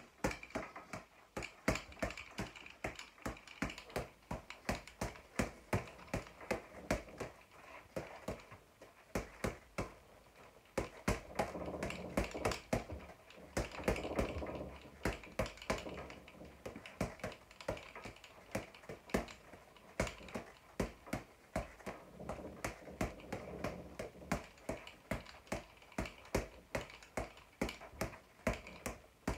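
Boxing gloves punching a floor-to-ceiling ball (double-end bag): a steady run of sharp smacks, a few a second, as the ball is struck and rebounds off its cords.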